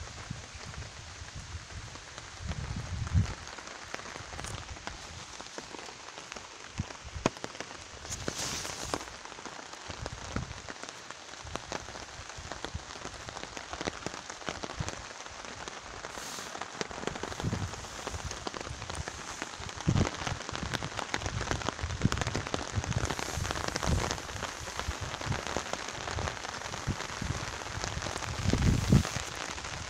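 Rain falling on a polyester Snugpak 10x10 tarp overhead: a steady hiss of many small drop taps. There are a few dull thumps, one about three seconds in, one near the middle and one near the end.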